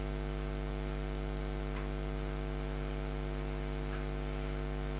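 Steady electrical mains hum: a constant low buzz with many evenly spaced overtones from about 50 Hz upward, carried through the microphone and recording chain during a pause in the talk.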